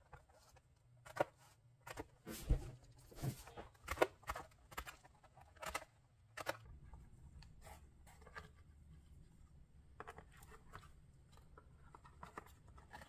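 Crop-a-Dile hand hole punch snapping through the edge of a paper journal page, several sharp crunching clicks in quick succession over the first six seconds or so. After that come softer paper handling and rustling with a few faint clicks.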